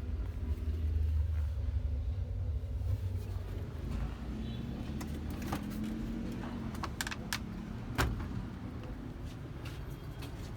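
LG washing machine running. A low rumble from the drum gives way to a brief motor hum, and a few sharp clicks follow, the loudest about eight seconds in.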